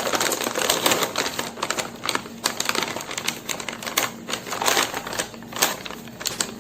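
Rapid, dense clattering and crackling from pantry items being handled: a fast jumble of irregular small clicks with no steady rhythm.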